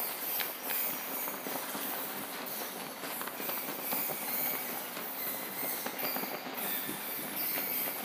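Bat-swarm sound effect: a dense, unbroken mass of high squeaks and chirps with many short clicks, like a cave full of bats.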